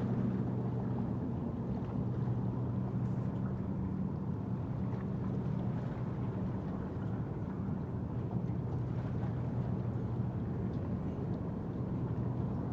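A low, steady engine drone that fades out in the second half, over a steady rushing background noise.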